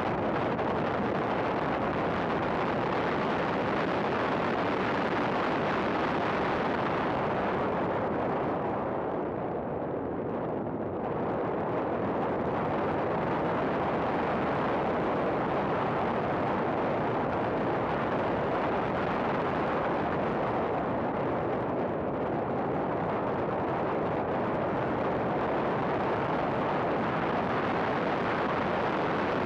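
Race car heard from onboard at speed on a track: loud engine, wind and road noise, dense and steady. The level drops briefly about ten seconds in.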